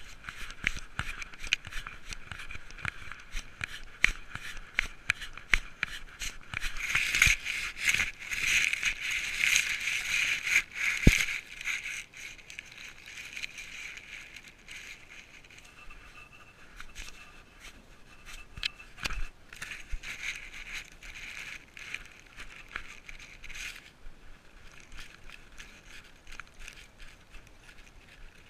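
Close rustling and scraping of grass and fur against a cat-worn GoPro as the cat moves and crouches in dry grass, made of many small clicks and crackles. The rustling is louder and denser for several seconds in the first half.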